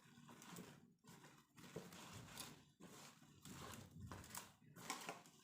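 Faint, repeated soft rustling and squishing of cauliflower florets and potato pieces being mixed with cornflour, rice flour and spices in a bowl.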